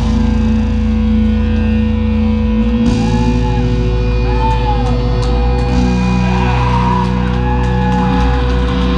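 Live heavy rock band's distorted electric guitars and bass holding a loud, sustained drone. From about three seconds in, wavering high tones rise and fall over it.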